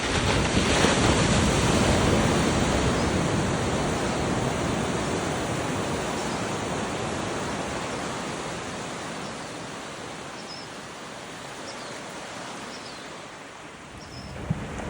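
Ocean surf on a beach: a wave breaks at the start and its wash slowly fades over about twelve seconds, then the next wave begins to build near the end.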